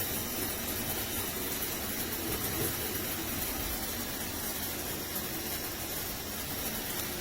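Shower head spraying water, a steady hiss of running water.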